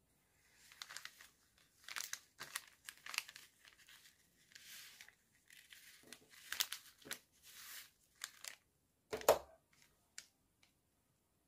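Jute twine being pulled and wrapped around a kraft paper package: the twine scrapes across the paper and the paper rustles and crinkles in short, irregular strokes. About nine seconds in there is one louder thump, the loudest sound here.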